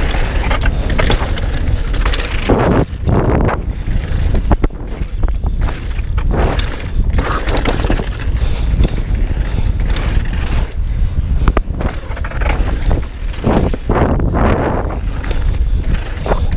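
Downhill mountain bike at speed on a dry dirt and loose gravel trail: a steady low rumble of wind on the helmet-camera microphone under tyre noise that surges every few seconds, with scattered sharp clicks and knocks as the bike rattles over bumps.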